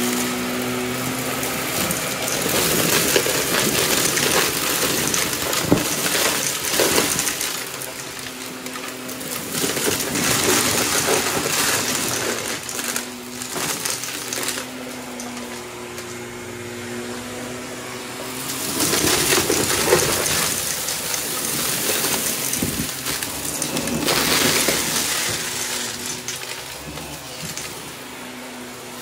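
Shark upright vacuum cleaner running over carpet, its motor humming steadily while small pieces of debris rattle and crunch up the nozzle in several loud surges.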